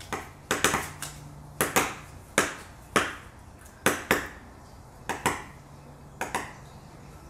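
Paper voting slips and a marker handled on a tabletop: about fifteen short, sharp taps and crinkles, irregular and sometimes in quick pairs, that stop shortly before the end. A faint steady hum lies under them.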